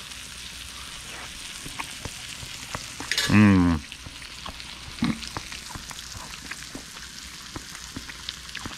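Chicken breasts sizzling and crackling in a frying pan with butter and oil, a steady hiss dotted with small pops. A brief loud voice sound cuts in about three seconds in.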